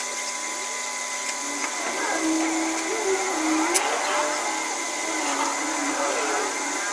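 A small motor-driven machine running steadily with a whirring hiss, with voices faint behind it.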